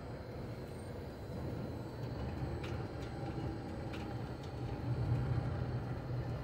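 Steady low engine and road rumble inside a moving tour bus, swelling slightly near the end, with a couple of light clicks or rattles midway.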